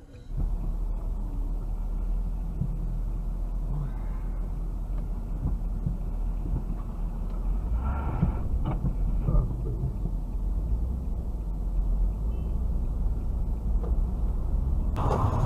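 Car dashcam audio from inside the cabin: a steady low vehicle rumble, with a brief higher-pitched sound about eight seconds in.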